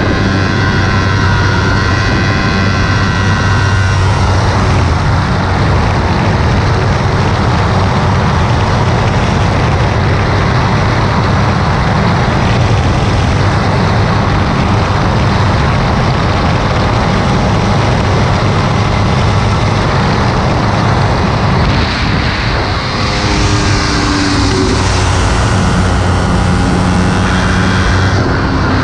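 Kawasaki Ninja 300 parallel-twin engine running hard at track speed, heard under heavy wind noise on a bike-mounted camera. The engine note stands out in the first few seconds, is mostly buried by wind through the middle, dips briefly about three-quarters of the way through, then comes back at a lower pitch.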